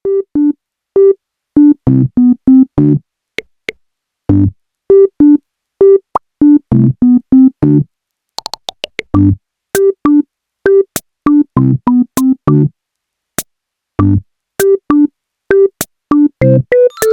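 Background music: a bouncy electronic tune of short, clipped synthesizer notes over a simple drum-machine beat.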